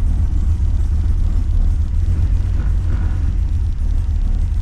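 Holden VX Commodore SS's LS1 V8 idling with a steady low rumble, the freshly rebuilt 4L60E automatic engaged in reverse.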